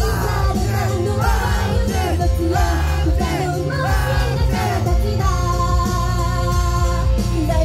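Upbeat J-pop idol song played loud through a live-venue sound system, with heavy bass and female vocals singing. The vocal line settles into a long held note a little over five seconds in.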